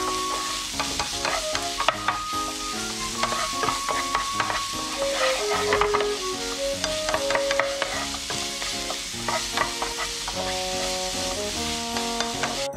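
Diced onion and garlic sizzling in oil in a frying pan, stirred and scraped with a wooden spatula, with frequent short scrapes and taps of the spatula against the pan. A simple background melody plays underneath.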